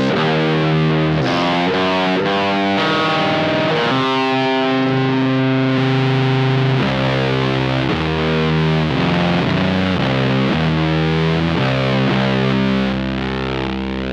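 Electric guitar through a one-knob fuzz pedal into a '69 Laney Supergroup amp, playing a slow, heavy doom riff of held, thickly distorted notes that change about every second.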